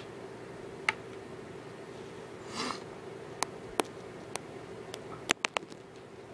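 A steady low hum with a scattered series of sharp clicks. The clicks come singly at first and then three or four close together about five seconds in. A short breathy noise comes about two and a half seconds in.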